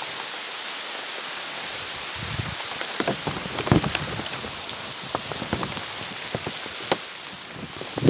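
Steady rain falling in a forest, a continuous hiss dotted with many sharp close drop taps. A few dull thumps come through, the loudest about a third of the way in.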